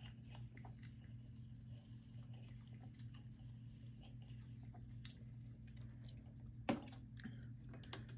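Faint mouth sounds of tasting sparkling water, with small smacking clicks, over a steady low hum. There is one sharper click near the end.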